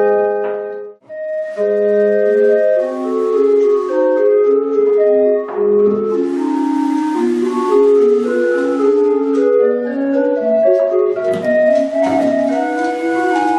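Homemade organ of wooden pipes set in a tree trunk and winded from a giant balloon, playing music in several voices with held and moving notes. The sound breaks off briefly about a second in and then goes on.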